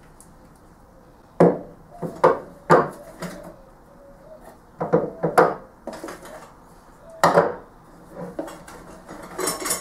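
Metal swivel casters with rubber wheels being handled and set down on a wooden tabletop: a series of sharp knocks and clunks, with quieter handling noise between them.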